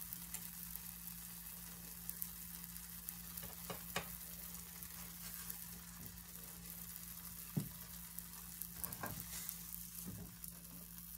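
Blueberry cornmeal pancakes frying in a nonstick skillet, a faint steady sizzle, with a few light clicks of a spatula against the pan as they are lifted out.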